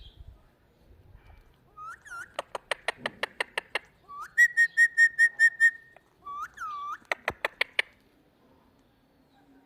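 Indian ringneck parrot whistling and clicking: twice, a short swooping whistle is followed by a quick run of sharp clicks, about eight a second. Between the two runs comes a rising whistle that breaks into a pulsed, buzzy tone of about seven beats.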